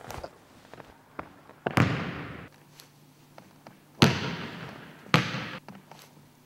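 A basketball hitting hard surfaces three times, about two, four and five seconds in, each thud ringing on in a long gymnasium echo.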